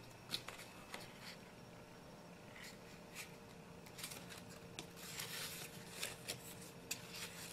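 Paper rustling and crinkling faintly as a folded sheet is handled and creased, with scattered small ticks and a fuller rustle about five seconds in, over a steady low hum.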